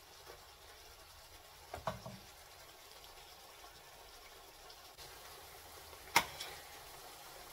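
Chicken karahi frying in oil in a steel pan, a faint steady sizzle. A metal spatula knocks and scrapes against the pan a few times about two seconds in, and there is a single sharp clink near the end.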